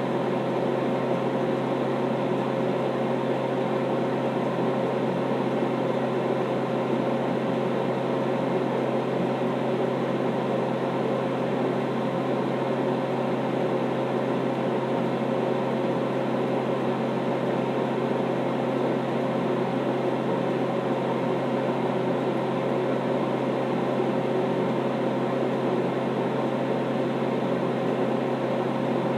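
A steady mechanical hum, as of a small motor or fan running, with a constant low drone under an even whir that does not change.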